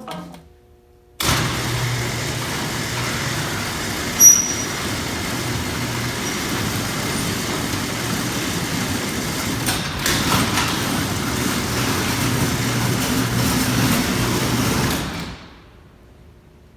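Overhead garage door running through its travel on an electric opener: a steady rumble and rattle over a motor hum for about fourteen seconds, with one sharp squeak about four seconds in. The door is loud and squeaky, a sign of dry, unlubricated moving parts.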